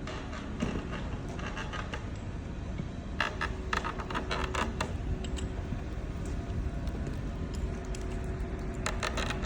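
Short bursts of metallic clinking and rattling over a steady low machinery hum.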